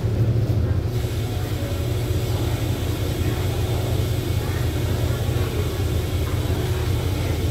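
Diesel train idling with a steady low rumble; a steady hiss joins about a second in.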